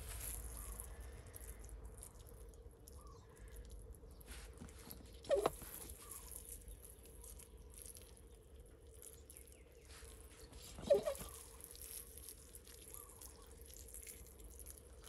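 Plastic hand-pump pressure sprayer being handled while it waters potting soil, over a faint steady background, with two short louder sounds about five and eleven seconds in.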